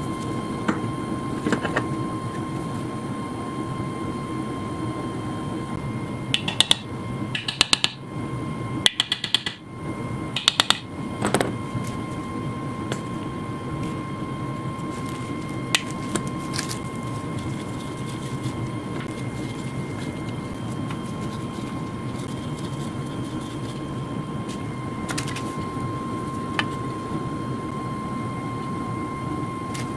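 Metal parts of an old air compressor clinking and tapping as they are handled during disassembly. A quick cluster of sharp, ringing metallic clinks comes about six to eleven seconds in, with a few single taps later, over a steady hum that carries a constant faint high tone.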